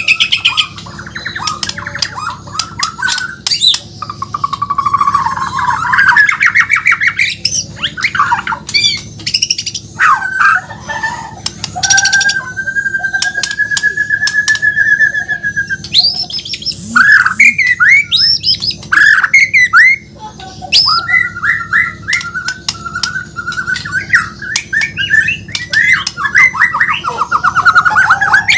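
White-rumped shama (murai batu), Borneo form, singing a loud, varied song: fast trilled and rasping phrases mixed with sharp clicks, and one long steady whistle lasting about three seconds near the middle.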